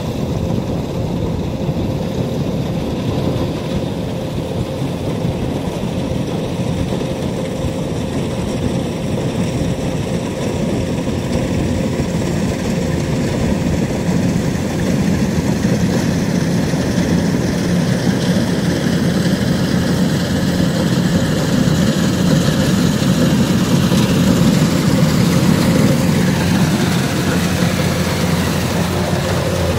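Kubota DC-105X combine harvester's diesel engine running steadily as the machine drives through a flooded rice paddy, growing louder past the middle and easing slightly near the end.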